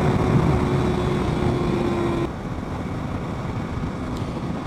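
Sport bike engine running at freeway speed under heavy wind rush, with a steady engine note. About two seconds in, the engine note and the wind noise drop suddenly to a lower, quieter level.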